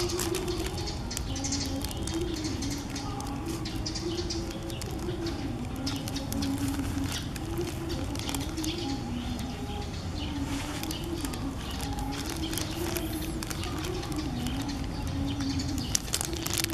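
Pigeons cooing continuously: a low coo that wavers up and down in pitch and overlaps without pause, with scattered faint clicks.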